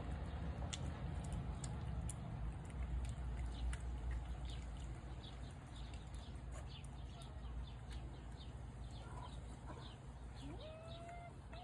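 Small birds chirping again and again over a low steady rumble, with one drawn-out rising-and-falling animal call near the end.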